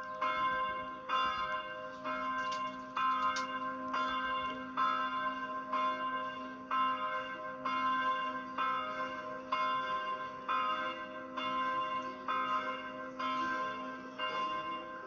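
A single bell tolling, struck about once a second, with each stroke ringing on into the next.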